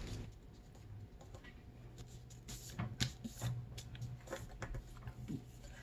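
Sheet of computer paper being folded and creased by hand: faint scattered rustles and crinkles, a little louder about three seconds in.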